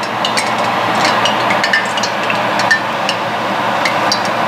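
Battered banana pieces deep-frying in hot oil in a wok: a steady sizzle with frequent sharp crackles and pops.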